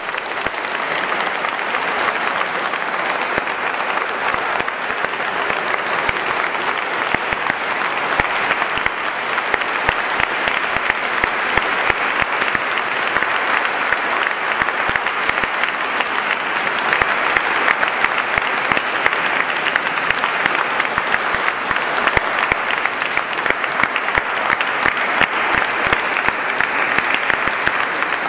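Audience applauding, a long steady round of clapping.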